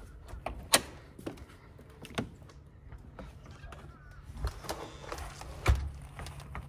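A door knocking shut and footsteps as someone walks out. There is a sharp knock about a second in, smaller knocks after it, and a heavier thud near six seconds, all over a low steady rumble.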